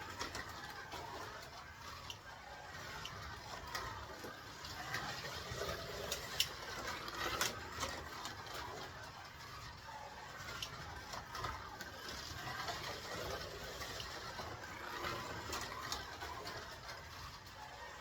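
Scalextric VL Commodore slot car, magnet removed, running laps on a plastic track: its small electric motor and gears whirring and rising and falling with the throttle, with a few sharp clicks from the track.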